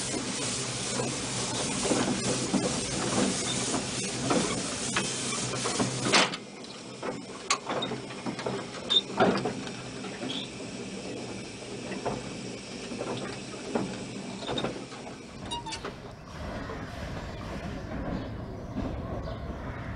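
Narrow-gauge steam locomotive Dolgoch heard from its footplate: a steady hiss of steam with clanks, which cuts off abruptly about six seconds in. After that comes quieter running with a few sharp metallic knocks.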